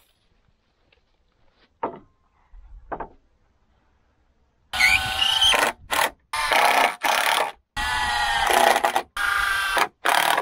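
A power drill driving screws to join two timber boards, in about seven short bursts of whirring that begin about halfway through. Earlier, two light knocks.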